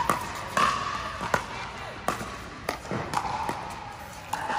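Pickleball paddles hitting the hard plastic ball in a rally: sharp pops every half second to second, each ringing briefly in the indoor hall, with voices in the background.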